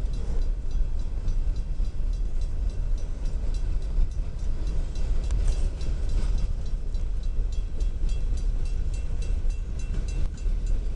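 Empty coal train's hopper cars rolling past, with a steady low rumble and a rapid run of wheel clicks over the rail joints.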